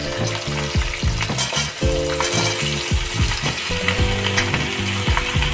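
Cut pumpkin sizzling in hot oil in a kadhai with fenugreek seeds, a steady frying hiss. Background music with a steady beat plays under it.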